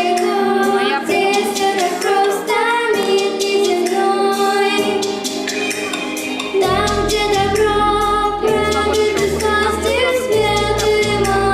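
A song with a female singing voice over a steady percussion beat; a bass line comes in about two-thirds of the way through.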